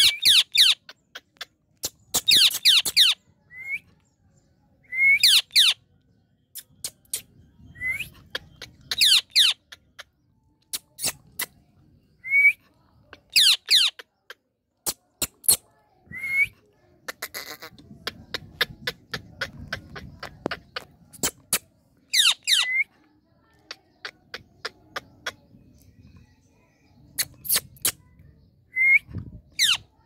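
Indian ringneck parakeet giving short, shrill calls in quick bursts every few seconds, with sharp clicks in between.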